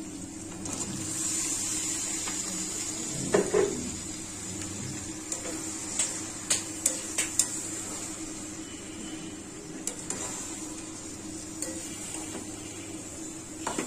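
Metal spoon clinking and scraping against a steel kadai while food is stirred, with a few sharp clinks about three seconds in and a quick run of them around six to seven seconds. Under them, a steady sizzling hiss from the pan on the flame.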